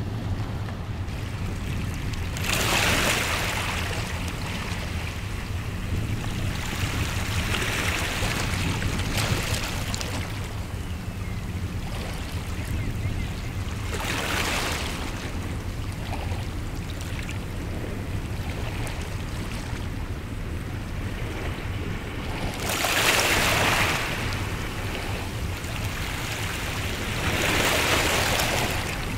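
Waves washing onto the shore in five surges about a second long, over a steady low drone of passing ships' engines.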